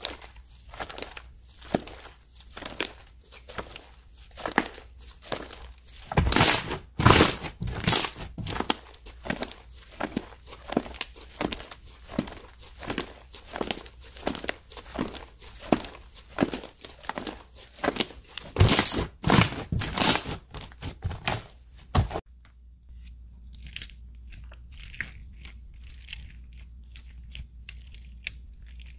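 Thick white slime with small beads mixed in, stretched and squeezed by hand, giving a steady run of sharp crackles and pops, one or two a second, with two louder clusters. About three-quarters of the way through it cuts to fainter, softer crackles of fingers pressing slime in a plastic tub, over a low hum.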